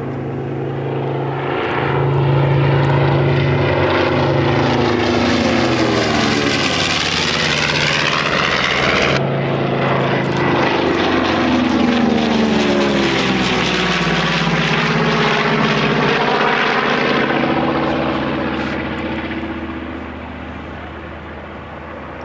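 North American B-25J Mitchell's two Wright R-2600 Cyclone radial piston engines and propellers droning through a display pass. The sound swells about two seconds in, holds loud with a sweeping, phasing quality as the bomber passes, and fades over the last few seconds as it banks away.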